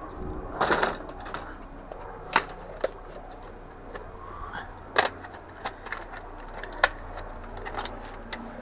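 Scattered sharp clicks and knocks of small hard metal and plastic parts being handled and set down while a CD drive is taken apart, about four louder knocks among lighter taps.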